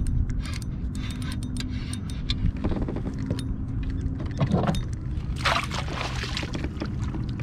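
Spinning reel being cranked, giving a steady whirring hum with many small clicks, over a steady low rumble. The cranking stops about four seconds in, and a brief burst of rushing, splashing noise follows about a second and a half later.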